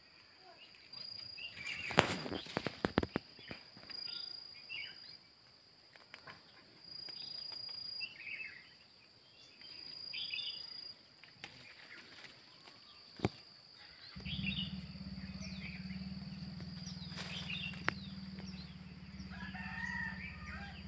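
Birds calling outdoors, with short chirps scattered throughout and a repeated high thin tone. A few sharp clicks come about two seconds in, and a low steady hum starts about two-thirds of the way through.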